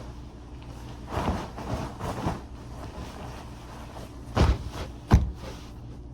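A steady low hum under a few scattered knocks, then two heavy thumps a little over half a second apart, the second the loudest.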